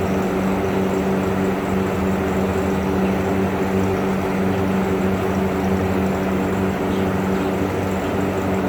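Steady machine hum with a constant low pitch and an even noise over it, unchanging throughout.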